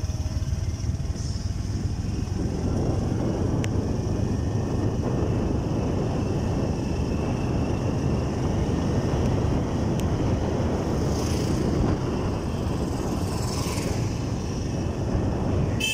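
Motorcycle riding down a hill road: steady, low-pitched engine, road and wind noise with no clear pitch, growing a little fuller a few seconds in.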